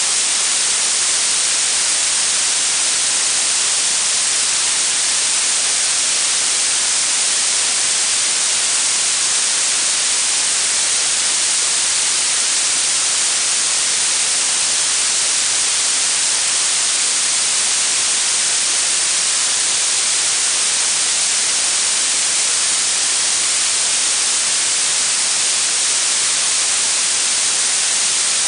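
Blue noise: a steady, even hiss with most of its energy in the treble and little bass.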